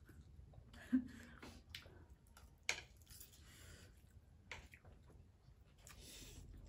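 Quiet close-up eating sounds: a few short clicks and mouth smacks, then near the end a brief slurp of instant noodles.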